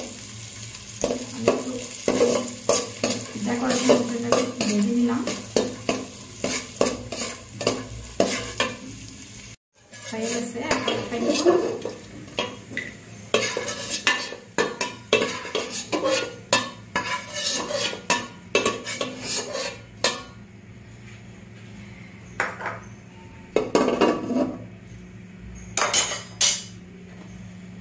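Metal spatula and slotted spoon scraping and clinking against an aluminium pot as cashews and raisins fry in ghee with a light sizzle, then are scooped out. The strokes are frequent at first and only a few clinks come near the end. The sound cuts out for a moment about ten seconds in.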